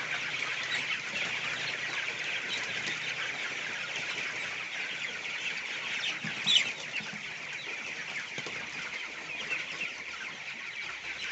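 A flock of broiler chickens calling, with many high, overlapping cheeps and clucks. One louder call stands out just past the middle.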